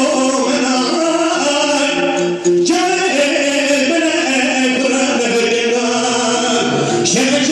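A man sings live into a microphone, amplified through a PA speaker, while a bağlama (Turkish long-necked lute) is strummed alongside. A short break between vocal phrases comes about two and a half seconds in.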